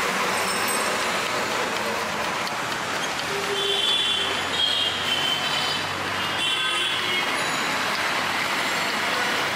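Steady street traffic noise from a busy road, an even continuous wash of passing vehicles, with a few brief high-pitched tones in the middle.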